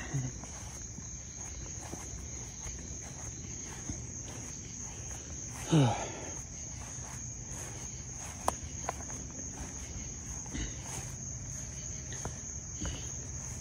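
Steady high-pitched trill of crickets, with one short, loud sound sweeping down in pitch about six seconds in and a couple of sharp clicks a few seconds later.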